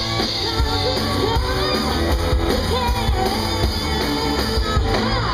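A live pop-rock band playing: a woman singing lead over acoustic and electric guitars and drums.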